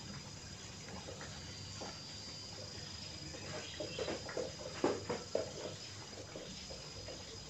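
Broom brushing and scuffing on a tiled floor, with footsteps, as a cluster of short soft strokes about halfway through, over a faint steady high whine.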